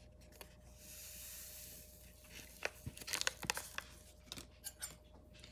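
A small drink-mix packet torn open, then its paper crinkling and crackling in the fingers as the powder is shaken out. The sound is faint.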